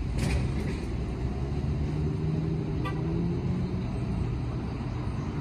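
Low, steady rumble of city street traffic, with a vehicle engine's hum swelling and fading around the middle.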